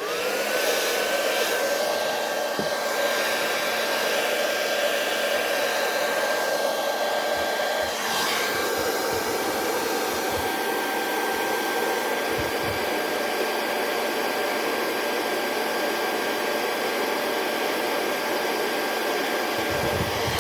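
Hot-air blower running steadily, heating a shoe to soften the glue so its glued parts can be pried apart. Its motor whine rises to pitch just after the start and falls away as it is switched off at the end.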